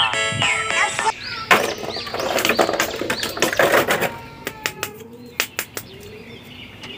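Clear plastic bag crinkling and rustling as hands handle small plastic action figures in it, with a dense run of crackles followed by a few separate light clicks and taps of the plastic figures.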